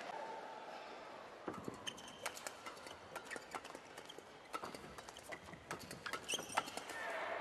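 A badminton rally: sharp racket strikes on the shuttlecock, with players' shoes squeaking and tapping on the court mat. A crowd hubbub dies away in the first second.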